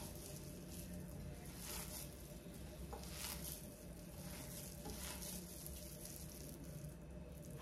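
Hands squishing and kneading a sticky, damp spinach and gram-flour mixture in a glass bowl: faint, irregular wet squelches over a low steady hum.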